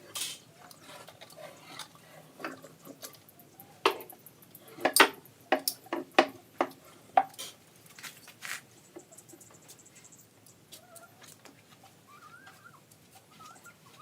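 Irregular sharp knocks and clicks of tools and parts being handled, with a quick run of louder knocks in the middle and only scattered ones later.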